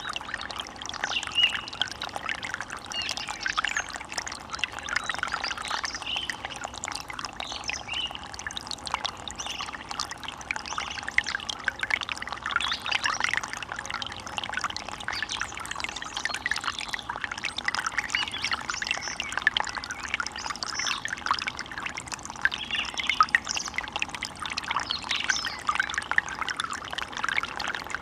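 Small stream running over stones: a steady, busy splashing and trickling of water.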